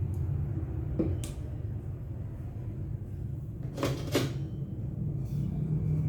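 A spatula knocking and scraping against a wok a few times, in pairs about one second and four seconds in, as ground spice paste is stir-fried, over a steady low rumble.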